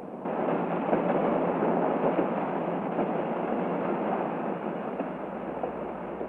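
Passenger train running along the track: steady rolling noise of wheels on rails, coming in about a quarter of a second in.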